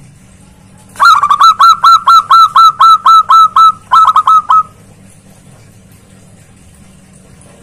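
Zebra dove (perkutut) singing loudly: a quick run of notes about a second in, then about a dozen clipped notes at roughly five a second, ending in a fast flurry, about four seconds in all.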